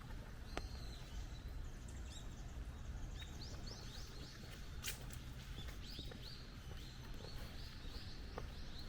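Small birds chirping, short high calls coming in quick runs throughout, over a steady low rumble and a few scattered clicks.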